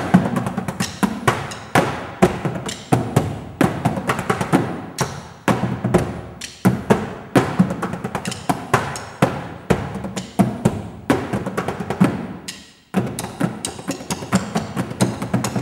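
Percussion music: quick, uneven sharp strikes and drum hits. It dies away briefly a little before thirteen seconds in, then starts again.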